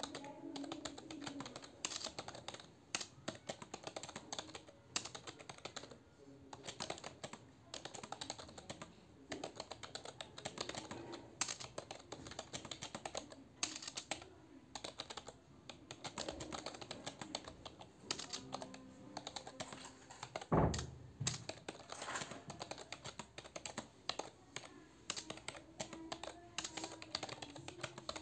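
Continuous fast touch-typing on a computer keyboard, a rapid irregular patter of keystrokes, with one louder thump about two-thirds of the way through.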